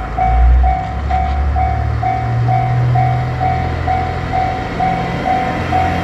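Japanese level-crossing warning bell ringing steadily at about two strokes a second, over the low drone of a JR Shikoku 1500-series diesel railcar's engine, which rises slightly in pitch about two seconds in.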